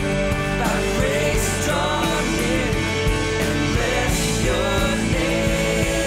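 Background music: a contemporary worship song, a full band with a sung melody over steady held chords.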